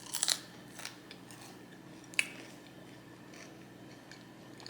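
Close-miked eating sounds: a few short, crisp bites and crackles, with a single sharp tap or click about two seconds in.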